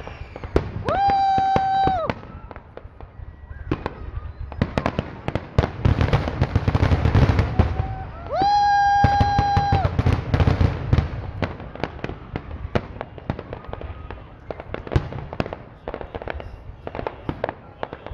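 Aerial fireworks show heard from afar: a dense run of shell bursts and crackling, with a heavy rumble of explosions midway. Twice a loud, steady whistle rings out for about a second and a half.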